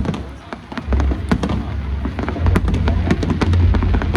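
Fireworks display: a dense run of sharp crackling pops over low booming bursts. There is a brief lull about half a second in, and the booming grows heavier and more continuous from about halfway through.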